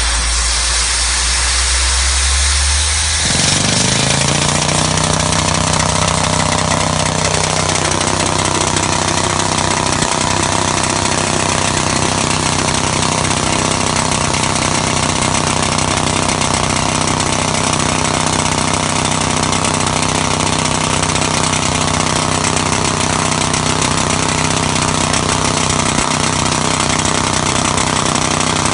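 Pneumatic jackhammer drill running continuously as it bores a soil-nail hole into an earth slope through a long steel drill rod, alongside an engine-driven machine. About three seconds in, a pitched engine note rises and then holds steady.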